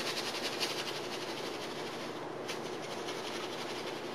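Paintbrush scrubbing acrylic paint, a run of quick, even scratchy strokes with one sharper stroke about halfway through, over a faint steady hum.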